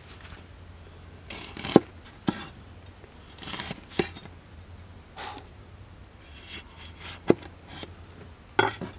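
Large kitchen knife cutting limes on a wooden chopping board: about five cuts, unevenly spaced, each a short swish of the blade through the fruit ending in a sharp knock of the blade on the board.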